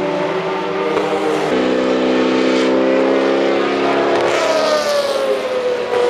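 Group C sports-prototype race cars running at speed, more than one engine heard at once. About four seconds in, one engine's note glides down in pitch.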